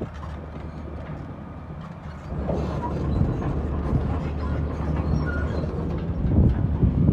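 Heavy diesel dump truck engines running, growing louder about two seconds in as the rumble thickens.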